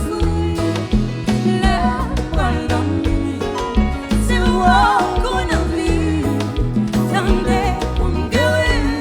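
Live band playing Haitian dance music, with a singer over a steady bass line and drums.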